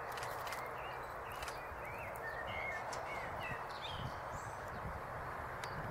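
Small birds chirping in short, quick calls over a steady outdoor hiss; the calls come mostly in the first few seconds.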